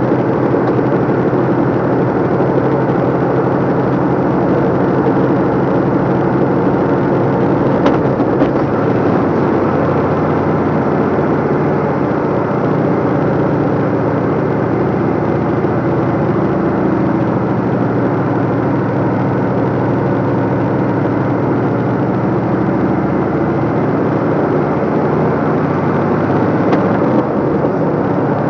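A DAF LF55 lorry's diesel engine running steadily under way, heard inside the cab with road noise, with a single brief click about eight seconds in.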